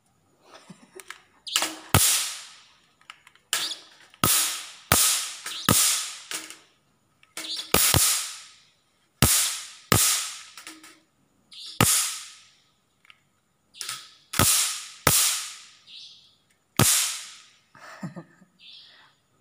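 Handheld electric mosquito racket zapping: a string of sharp electric snaps, each fading quickly, about one a second at irregular intervals.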